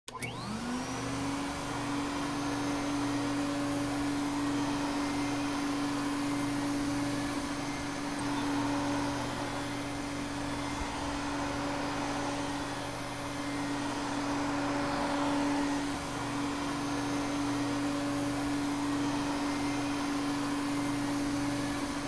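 Vacuum cleaner starting up, its motor whine rising in pitch over the first second, then running steadily with a constant hum and rushing air.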